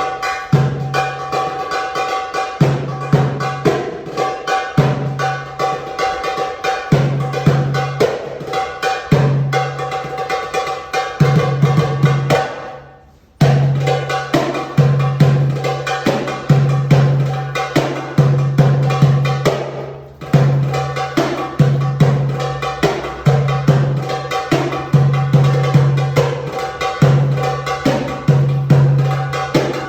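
Tabla solo: rapid strokes on the tuned right-hand drum (dayan) ringing at a steady pitch, with deep, swelling bass strokes on the left-hand drum (bayan). The playing breaks off briefly about 13 seconds in, then resumes.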